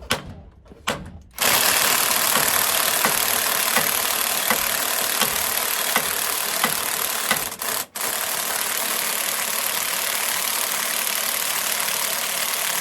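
A power tool starts about a second in and runs steadily, dipping out briefly near the middle before running on. It is being used on a badly stuck driveshaft center bearing.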